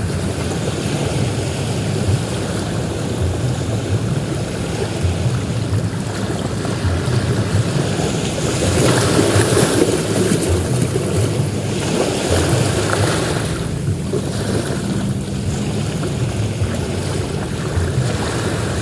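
Sea waves breaking and washing up on a beach, a continuous rush that swells louder about nine seconds in, with wind buffeting the microphone.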